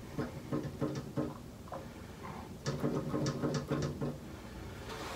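Cleaning solution of vinegar, water and baking soda sloshing and gurgling through a French horn's tubing and rotary valves as the horn is rocked, with a quick run of short clicks about three seconds in.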